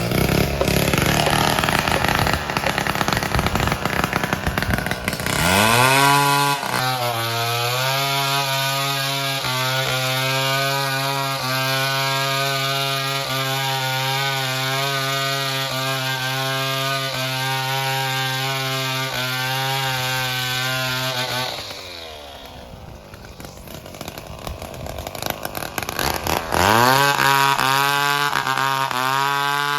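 Two-stroke chainsaw cutting wood. It runs at high revs with a steady pitch, drops back to a low idle about 22 seconds in, and revs up again near the end.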